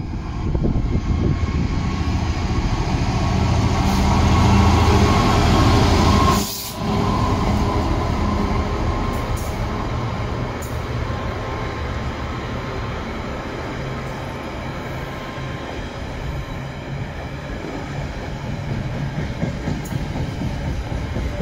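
A Class 66 diesel locomotive's two-stroke V12 engine running as it approaches and passes, growing louder over the first six seconds, with a momentary break about six and a half seconds in. Then the steady noise of a long rake of box wagons rolling past on the rails, slowly easing.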